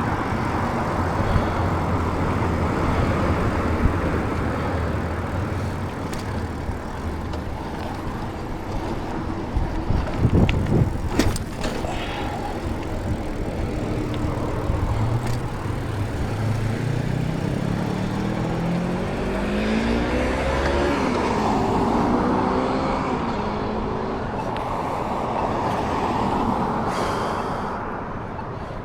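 Road traffic with wind noise. An engine hums steadily, then about halfway through its pitch rises in stepped glides as a vehicle accelerates through a gear change. A few sharp knocks come about a third of the way in.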